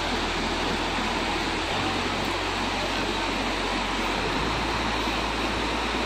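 Dassam Falls, a waterfall spilling over stepped rock ledges, rushing steadily with an even, unbroken wash of water noise.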